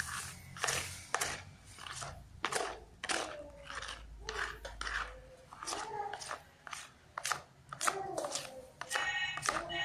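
A hand squeezing and stirring wet tahu bakso meatball dough in a plastic bowl: irregular squelches and slaps, about two a second.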